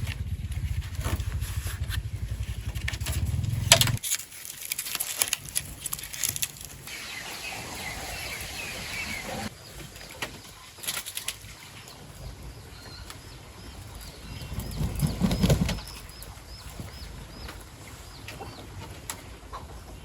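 A motor runs steadily, then cuts off about four seconds in. After that come scattered knocks and clatter, and in the second half a bird chirps over and over with short, quick calls.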